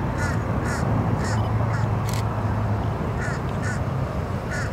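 Low, steady rumble of a Falcon 9 rocket climbing away overhead. Over it a bird calls in short repeated chirps, about two a second in runs, with one sharp click about two seconds in.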